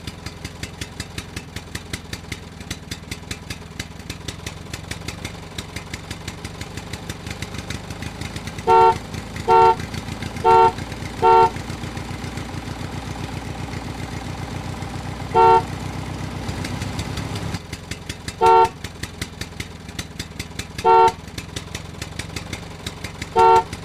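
Tractor engine running with a fast, steady chugging beat, and a vehicle horn giving short beeps: four in quick succession about nine seconds in, then single beeps every few seconds.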